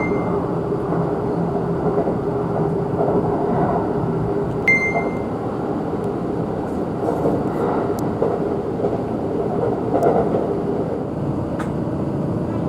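Kintetsu limited express electric train running, heard from inside the passenger car: a steady rumble of wheels on rail with a low hum. A few sharp clicks and a brief high ping about five seconds in are heard over it.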